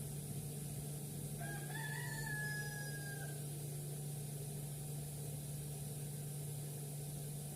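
A rooster crowing once, a call of about two seconds starting roughly a second and a half in, over a steady low hum.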